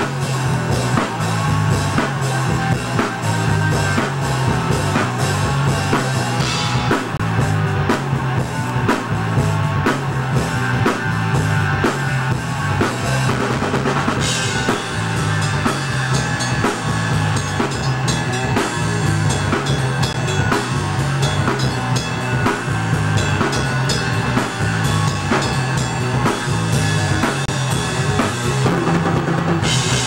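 Rock band jamming, with the drum kit loudest: bass drum and snare keep a steady beat under electric guitar.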